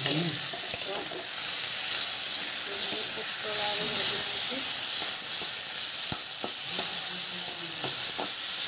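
Pointed gourd and potato pieces sizzling steadily as they fry in oil in a kadai, stirred with a spatula that clicks against the pan a few times.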